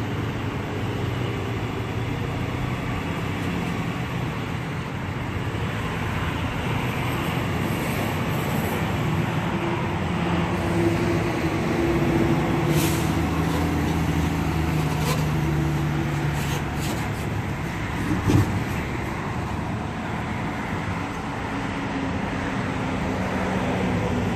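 Pickup truck towing a large gooseneck trailer, its engine running steadily as it drives slowly off, with road noise throughout. A single short knock about 18 seconds in.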